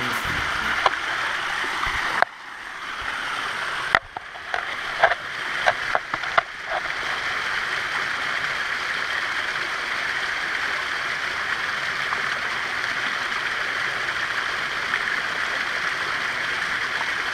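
Small waterfall splashing steadily over rock ledges into a shallow pool, a close, even rush of water. A handful of short, sharp clicks come about four to six seconds in.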